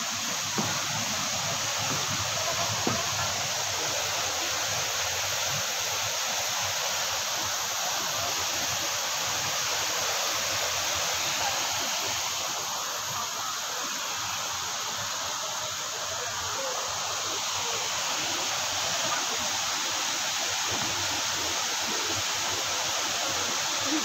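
Waterfall with water pouring and splashing over rock ledges: a steady, unbroken rushing noise.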